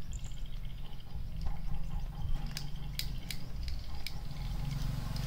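Kitten crunching dry kibble from a plastic tub: a run of small, sharp crunches and clicks, thickest in the middle, over a low steady rumble.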